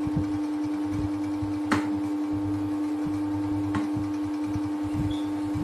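A steady electrical hum with two sharp clicks about two seconds apart, from the Bluetooth speaker being handled.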